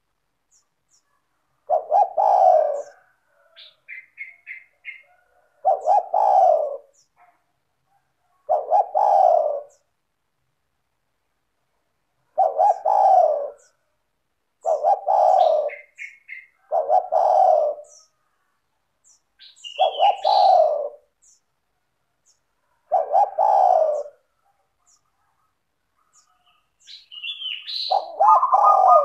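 Spotted dove (tekukur) cooing, a low phrase of about a second repeated roughly every two to four seconds, about nine times. Higher chirps and a few short trills from a smaller bird come between the coos.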